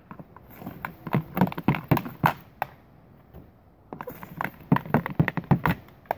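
Hockey stick blade tapping a ball back and forth on a plastic shooting pad while stickhandling: two runs of quick clacks, each about two seconds long, with a short pause between.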